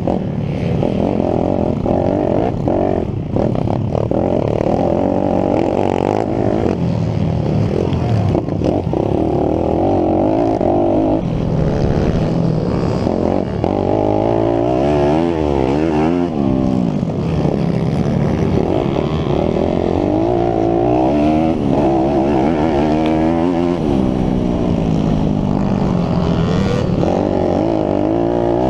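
YCF SP3 pit bike's single-cylinder four-stroke engine heard from an onboard camera while racing, repeatedly revving up and falling off as the rider works the throttle through corners and straights.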